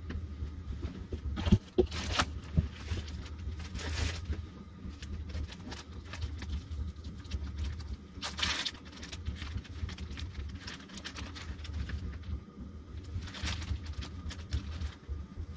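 Plastic bread bag crinkling as it is handled, in several short bursts, over a steady low hum.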